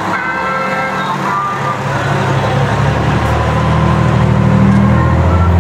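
Pierce fire engine's diesel engine running as the truck rolls slowly past close by, its low hum growing louder as it comes alongside. Held tones of Christmas music from the truck's loudspeakers sound over it in the first second or two.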